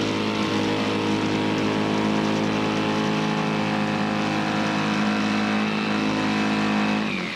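A motor running steadily at a constant speed, then winding down in pitch right at the end as it is switched off.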